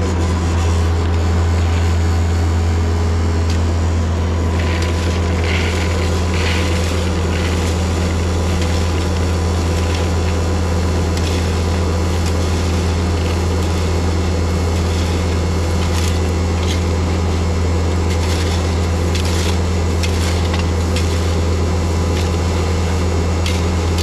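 Bulldozer's diesel engine running steadily with a deep, unchanging drone, and scattered clicks and rattles over it.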